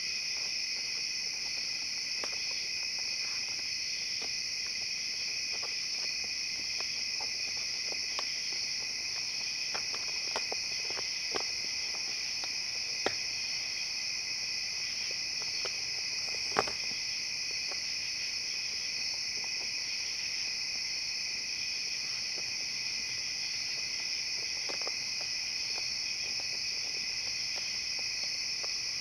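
A steady chorus of night insects, with scattered clicks, scratches and knocks from raccoons clambering over and pawing at a vinyl-covered couch. The sharpest knock comes a little past halfway.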